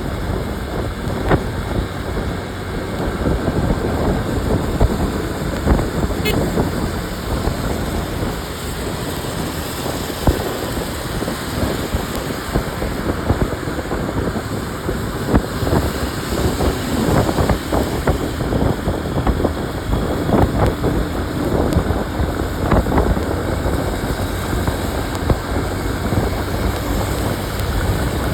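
Wind buffeting the microphone of a phone mounted on a moving motorcycle, a steady rushing with frequent gusty thumps, over the engine and tyre-on-road noise.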